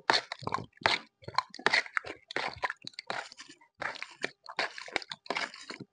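A man eating cubed gelatin with his mouth down at the bowl: a run of short, wet chewing and slurping noises, about two a second.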